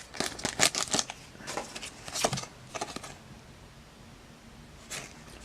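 Soft rustles and light clicks of a Pokémon trading-card booster pack's foil wrapper and cards being handled, mostly in the first three seconds, then quieter with one more tick near the end.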